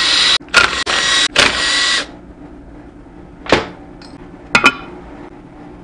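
Cordless power driver whirring in three short bursts as it spins bolts out of an air-compressor pump's crankcase cover. About three and a half seconds in comes a sharp metal clank, and about a second later a double clank, as tools and parts are set down on the metal bench.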